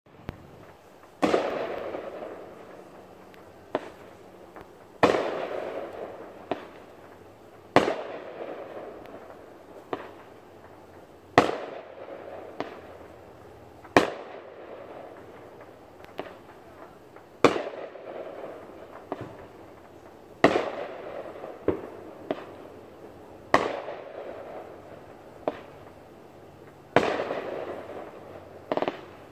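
Aerial fireworks bursting: a loud bang about every three seconds, each trailing off over a second or two, with smaller pops in between.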